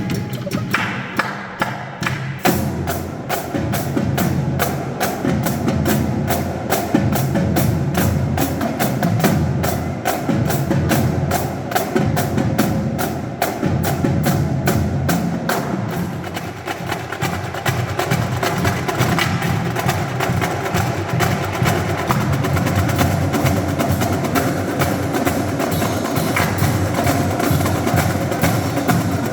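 High-school drumline playing a fast, dense percussion piece of rapid drum strokes, filling out to full strength about two seconds in and then running on steadily.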